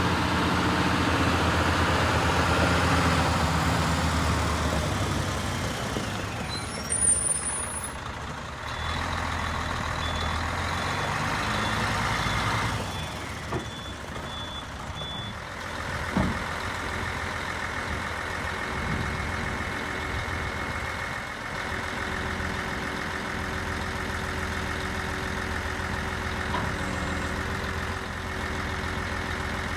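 Diesel engine of a Mercedes-Benz Actros 4144 concrete pump truck running steadily. Its sound shifts about 8 and 13 seconds in, a thin high tone sounds for several seconds in the middle, and there is a single sharp knock about 16 seconds in.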